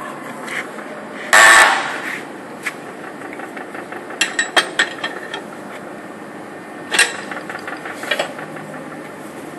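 A hand wrench working a nut on a bolt clamped in a bench vise, with no penetrant on the threads. There is one loud noisy metallic burst about a second and a half in, lasting about half a second, then a quick run of about six sharp clicks a few seconds later and single clicks after that.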